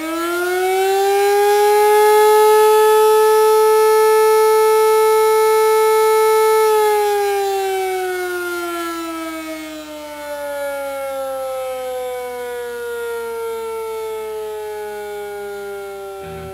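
A siren rising in pitch, holding one steady wail for about five seconds, then slowly sliding down in pitch.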